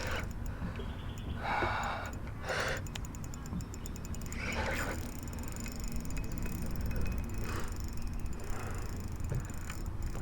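Fishing reel working in short, repeated bursts of mechanical ratcheting over a steady low rumble, as a big fish is played on the line.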